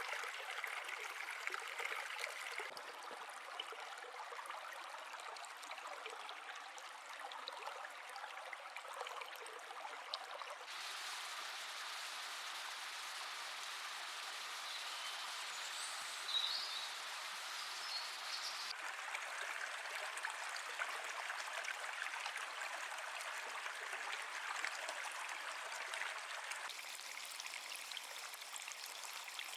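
Running water of a stream, steady flowing and trickling, in several different recordings cut together so the sound changes abruptly about every eight seconds. A few brief high chirps sound a little past the middle.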